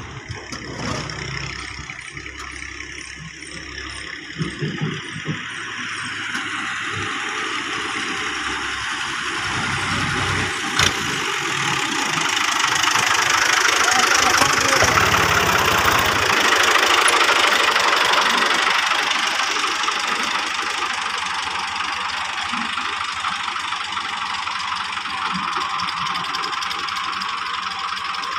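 Diesel tractor engine running as the tractor passes close by, growing louder to a peak about halfway through, then slowly fading as it pulls away.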